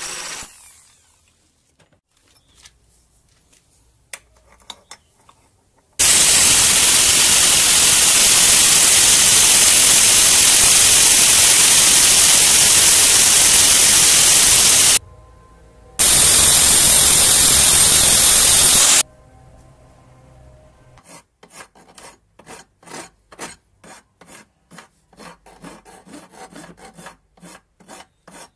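An angle grinder cuts through the steel stem of an old engine valve. It starts abruptly, runs loud and steady, breaks off for about a second, then cuts again briefly. After that a hand file is stroked back and forth over the valve head, about two strokes a second.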